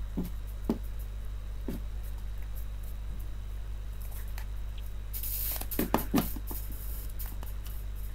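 Hands squeezing the two halves of a plastic laptop charger case shut: a few soft plastic knocks, then a brief rubbing hiss and two sharp clicks about six seconds in, over a steady low hum.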